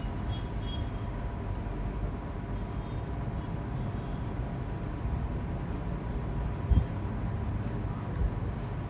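Steady low rumble of background noise with a faint, thin steady tone, and one brief knock about seven seconds in.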